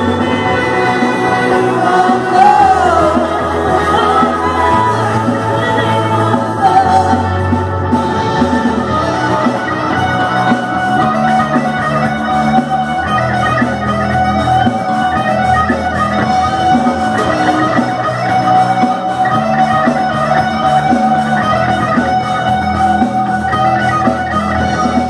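Live rock band playing loudly: electric guitar and bass guitar over a drum kit, with a woman singing.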